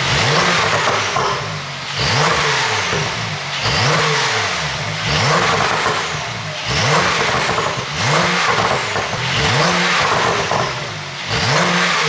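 Porsche 911 Turbo S (992) twin-turbo flat-six with a pop-and-crackle ECU tune, revved about eight times in a row, roughly every second and a half. Each rev rises and falls, and crackles and pops come from the exhaust as the revs drop.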